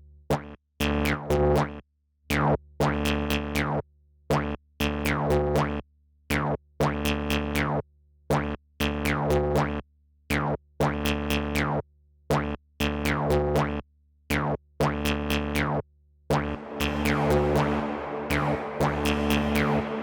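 Electronic music from a VCV Rack software modular synth patch: stop-start sequenced bass notes with clicky attacks and squelchy falling filter sweeps, in a repeating pattern. About four seconds before the end it turns into a denser, continuous texture with a noisy wash.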